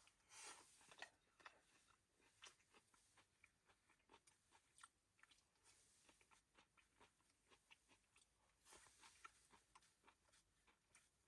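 Faint, irregular clicks and small crunches of a freshly cooked stir-fry being handled with utensils.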